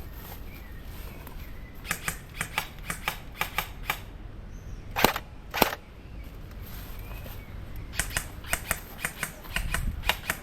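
Airsoft gun firing a string of quick single shots, a sharp click for each, about two seconds in. Two louder cracks follow about half a second apart, then another fast run of shots near the end.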